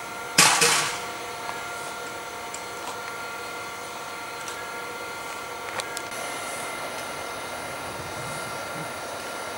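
Rail-yard machinery hum, steady with several held tones. About half a second in, a short loud burst of hiss fades out within half a second, and a single click comes near the six-second mark.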